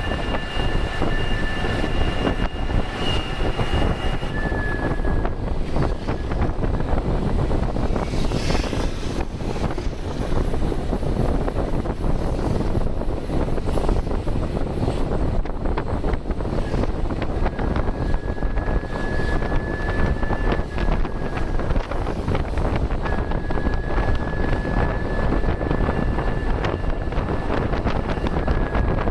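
Ashok Leyland bus's turbocharged diesel engine running, with a steady high turbo whistle over the engine noise. The whistle holds for the first few seconds, fades out, and comes back twice in the second half.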